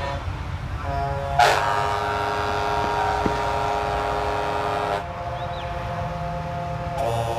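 Bus horns sounding in long held blasts of several tones at once. A louder blast starts about a second and a half in, and the horn chord changes twice, over a low engine rumble from the passing buses.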